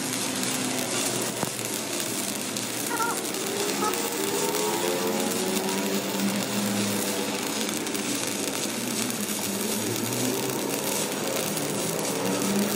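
Stick-welding arc crackling and hissing steadily as a repair weld is laid on a cracked truck rear axle spindle housing, with a fainter wavering pitched sound underneath.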